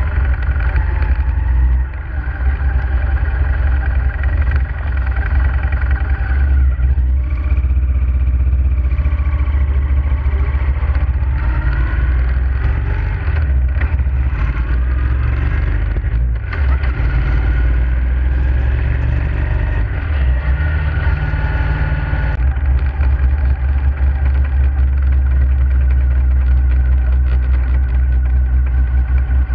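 Motorcycle engine running while riding, with a deep, steady low rumble. Its pitch rises and falls several times as the bike speeds up and slows.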